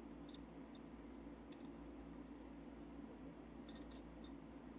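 Faint scattered clicks and taps of a small plastic light piece being worked into a diecast toy car body, against a low steady hum.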